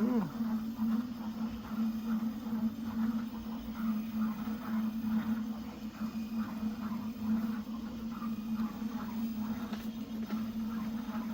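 Prusa XL 3D printer printing: its stepper motors whir in quick, constantly changing pitched chirps over a steady low hum.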